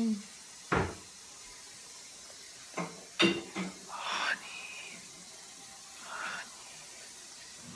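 Several short kissing smacks of lips against a puppy's fur, scattered with quiet pauses between, one of them drawn out with a rising squeak.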